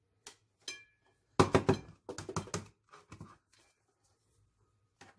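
Grinder cup being tapped and knocked to shake ground roasted flaxseed out onto a plate: a couple of light taps, then two quick clusters of sharp knocks about a second and a half and two and a half seconds in, with a few softer ones after.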